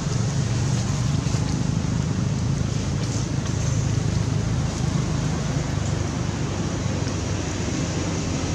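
Steady low outdoor rumble at an even level, with no calls or cries standing out.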